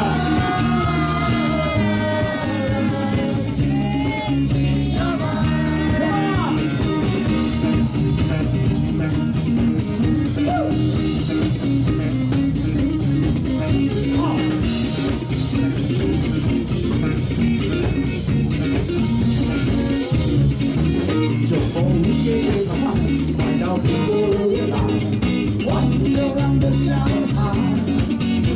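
Live rock band playing an upbeat song with electric guitar and drum kit, with a sung or lead melody sliding in pitch over the first several seconds.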